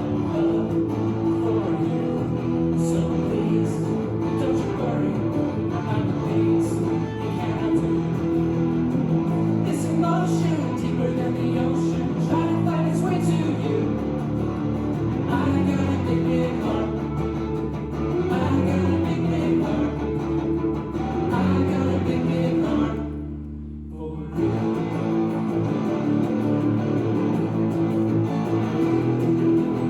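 A live band playing, with strummed guitar leading, recorded on a phone. About three-quarters of the way through, the music drops to a low held note for about a second, then comes back in.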